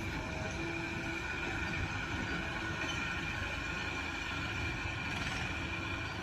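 Heavy diesel engine running steadily, with a rumble and a steady high whine over it.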